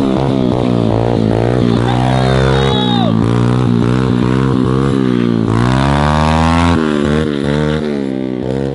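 Small pit bike engine revving up and down over and over as the rider works the throttle to hold wheelies, its pitch swelling and dropping about once a second.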